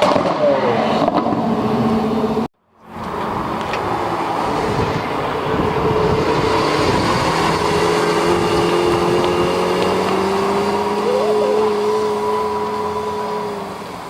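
Lamborghini engine running at a steady drone that climbs slowly in pitch, then fades near the end. A short cut to silence about two and a half seconds in breaks it from another engine sound.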